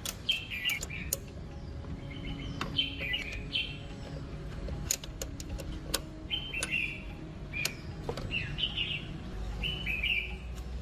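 A small bird chirping in short repeated phrases of quick stepped notes, every second or two, with scattered sharp clicks or taps in between.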